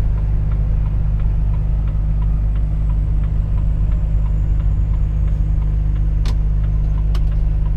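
Volvo FH 460 truck's diesel engine running steadily as a low drone while driving, with faint regular ticking and two sharp clicks near the end.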